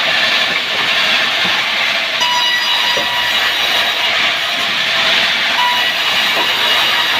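Timber saw running steadily, a loud continuous mechanical noise with faint steady whining tones.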